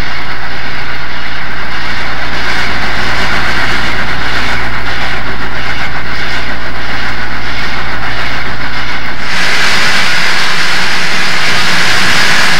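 Steady running noise of the Southern Pacific AC-11 cab forward steam locomotive 4274 working its train upgrade, a continuous rumble and hiss with no clear beat. About nine seconds in it changes abruptly: the low rumble drops out and a brighter hiss takes over.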